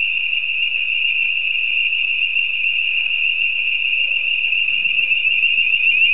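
Building fire alarm sounding one steady, unbroken high-pitched tone.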